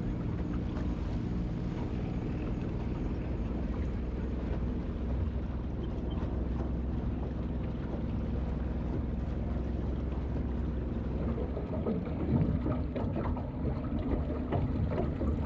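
A 632 cubic-inch big-block Chevy V8 with open zoomie headers idles steadily in a jet drag boat while it warms up. About twelve seconds in, the sound turns rougher and louder.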